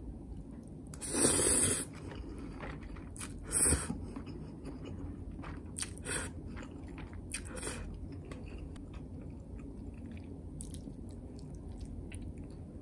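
Someone eating spicy zucchini noodles: chewing, with two louder short noisy sounds about one and three and a half seconds in and fainter ones around six and seven and a half seconds.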